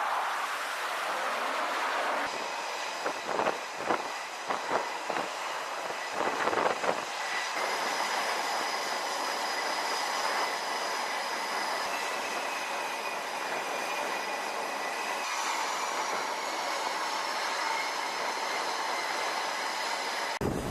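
Jet aircraft engines running on a carrier flight deck, a steady loud rush with a high-pitched whine, with a string of knocks and clanks from about three to seven seconds in.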